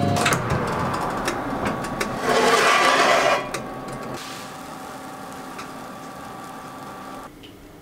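Clicks and a loud burst of noise about two seconds in as the oven and its metal baking tray are handled, then a steady oven hum with faint whining tones that stops shortly before the end.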